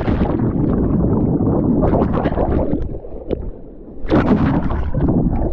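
Muffled churning and bubbling of pool water heard through a submerged GoPro after a jump into the pool. The sound drops away around three seconds in, then a louder burst of it comes in about a second later.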